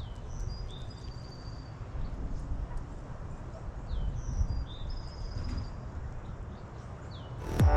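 Birds chirping in short whistled notes, some sliding in pitch, over a low, uneven wind rumble on the microphone; music comes in near the end.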